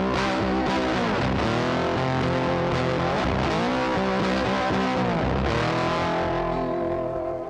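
Background rock music led by distorted electric guitar with bending notes, dipping in level near the end.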